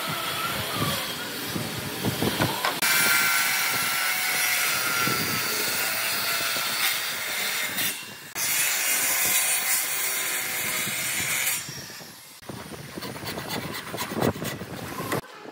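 Handheld circular saw cutting through weathered wooden bench planks in two long passes with a short break between them. Light scratching comes before the saw starts, and a series of chisel knocks and scrapes follows near the end.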